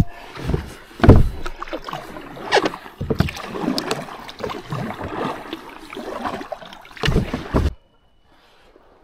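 Kayak paddle strokes on calm water: the blades dip and pull with uneven swishes and splashes every second or so. The sound cuts off suddenly near the end.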